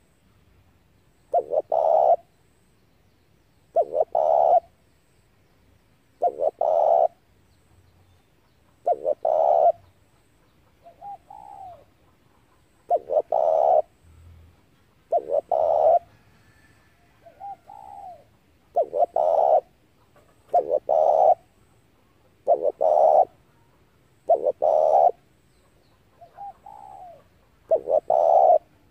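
Spotted dove cooing: a low, hollow multi-part coo phrase repeated about every two to three seconds, around eleven times, with three fainter, shorter coos in between.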